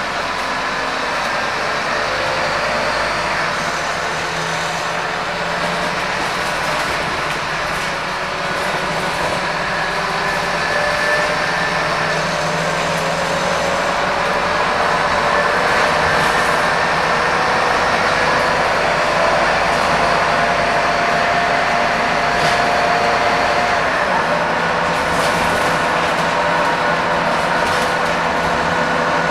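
Scania K230UB bus's five-cylinder diesel engine and running noise heard from inside the passenger cabin as the bus drives, with a faint whine that climbs slowly in pitch as it gathers speed and breaks off about five seconds before the end.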